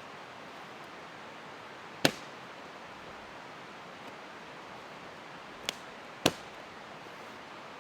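Three sharp knocks, the first about two seconds in and the other two close together near the end, over a steady background hiss.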